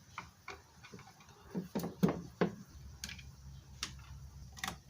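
Irregular light clicks and taps, with a few louder knocks about two seconds in, as screws are taken out to remove the base plate from a Kobalt router.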